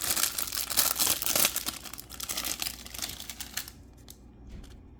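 Plastic wrapper of a 1987 Donruss baseball card rack pack crinkling and tearing as it is opened by hand. The crackling stops about three and a half seconds in, leaving a few faint clicks of cards being handled.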